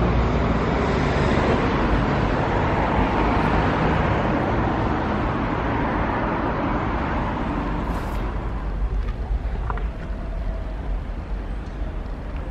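Outdoor city traffic noise with wind rumble on the microphone, a steady dense hiss and low rumble that eases off about two-thirds of the way through, leaving a few faint clicks.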